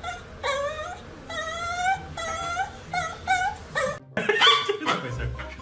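A small poodle-type dog whining in a run of short, high-pitched whimpers that rise and fall, begging for food held out to it. The whining stops abruptly about four seconds in.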